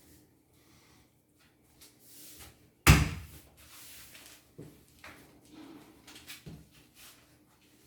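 A loud knock of wood on wood about three seconds in, followed by two lighter knocks and a few small clicks, from furniture parts being handled and fitted during installation.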